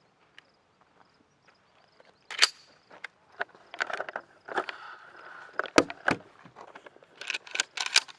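Handling noise: scattered sharp clicks and knocks with a brief rustle, then a quick run of clicks near the end, typical of a firearm and its gear being handled.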